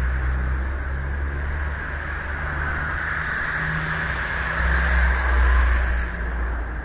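A car drives past on the street, its tyre and engine noise building to a peak about five seconds in, then falling away, over a low rumble.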